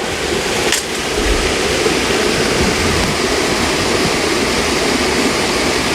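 Creek waterfall pouring into a deep pool: a steady, even rush of falling water.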